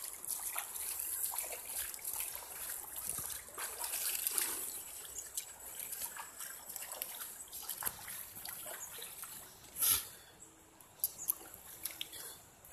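Light water splashing and trickling from a person swimming, irregular and steady, with one brief louder splash about ten seconds in.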